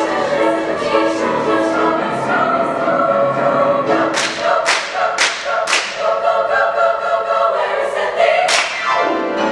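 Choir singing a gospel spiritual through to its final chord, with a few sharp percussive hits: four in quick succession about halfway through and one more near the end.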